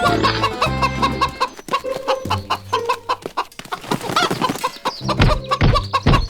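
Chickens clucking over background music.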